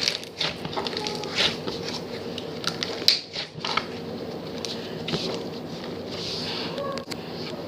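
Hands squishing and poking a sparkly smoothie slime, making irregular soft sticky clicks and crackles.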